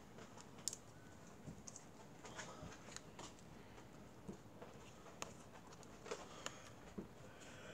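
Faint rustling and light scattered ticks of paper being handled and folded by hand.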